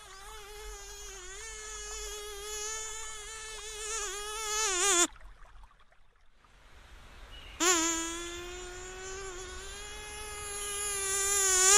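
Mosquito buzzing close by: a thin, steady, high whine that wavers a little and swells louder. It cuts out about five seconds in and returns at about seven and a half seconds, growing louder again toward the end.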